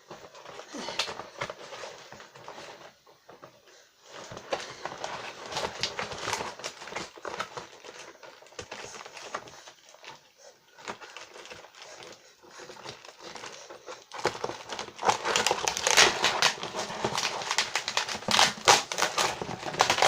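Parcel packaging being handled and pulled apart, crinkling and rustling with many small crackles. It gets much louder for the last six seconds or so.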